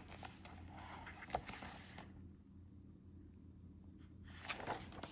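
Faint rustling of photo cards handled by hand while flipping through them, with one light tap about a second and a half in. It goes quiet in the middle before the rustling picks up again near the end.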